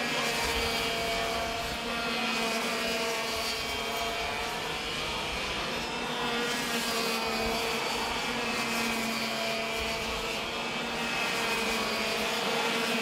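Two-stroke racing kart engines running at high revs as karts lap the circuit: a steady, high-pitched buzzing drone that rises and falls a little in pitch as the karts accelerate and brake through the corners.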